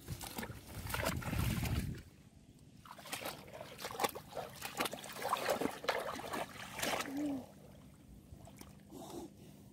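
Hands splashing and sloshing in shallow muddy water among water hyacinth, in many short scattered splashes and rustles. A low rumble fills the first two seconds.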